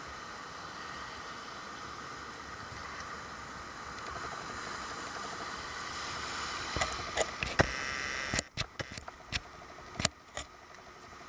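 Steady wash of breaking ocean surf. In the second half, a run of sharp clicks and knocks, with the background dropping away between them.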